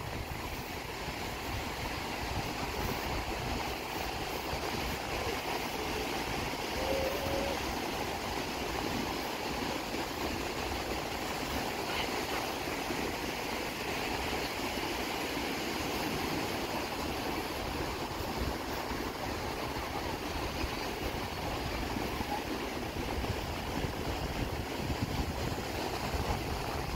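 Ocean surf breaking and washing up the beach in a steady, even rush, with a low, uneven rumble underneath.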